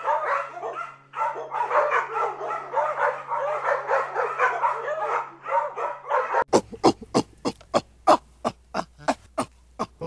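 Small dog barking in quick, high-pitched, rising-and-falling cries. About six seconds in it switches to a rapid run of short, sharp barks, about four a second.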